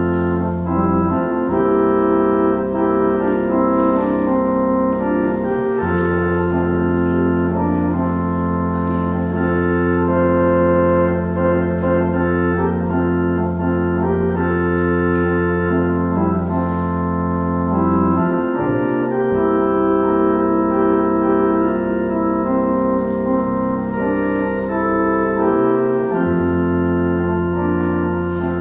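Organ playing slow, sustained chords over long-held bass notes that change only every few seconds.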